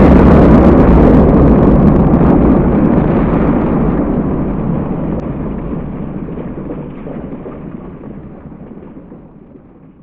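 Explosion sound effect of a planet blowing up, a long, deep noise dying away slowly until it fades out at the end.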